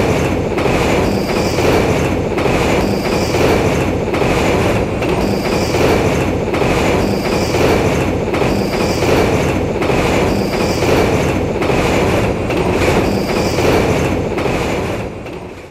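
Passing passenger train running on the rails: a steady loud rumble with a regular clack about once a second, fading out at the very end.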